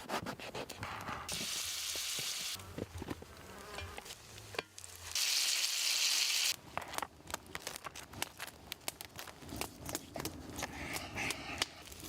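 Food sizzling on a hot pan over a campfire, in two loud spells of a second or so that start and stop abruptly. Many small clicks and crackles run through the rest.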